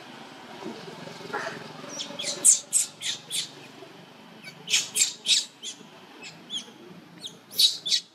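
Newborn macaque crying in short, high-pitched squeals, three bursts of several calls each: a distress cry calling for its mother.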